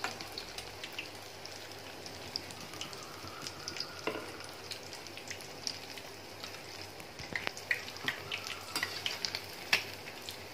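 Egg-coated idli pieces deep-frying in hot oil: a steady sizzle with sharp crackles and pops, which come thicker in the second half.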